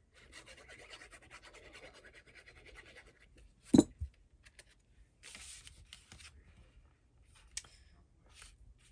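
Fine scratching and clicking of a fine-tip glue bottle being run over a square of patterned paper, then a single thump about four seconds in, the loudest sound. Paper rustling and rubbing follow as the glued square is pressed onto red cardstock.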